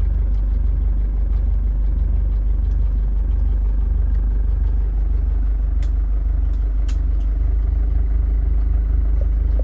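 Isuzu Hi-Lander's 2.5-litre diesel engine idling steadily, heard from inside the cabin as a low, even rumble. A few light clicks come about six to seven seconds in.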